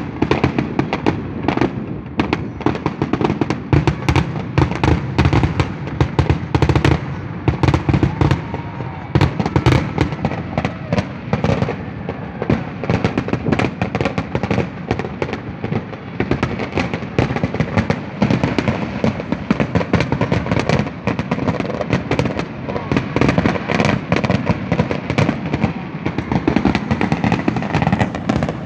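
Fireworks display: aerial shells bursting in a dense, unbroken barrage of rapid bangs and crackles, several a second.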